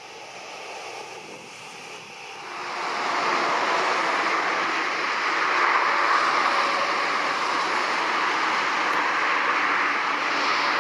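Jet engines of a widebody twinjet airliner at takeoff power on its takeoff roll. After a quieter start, a loud, steady roar builds about two and a half seconds in and holds.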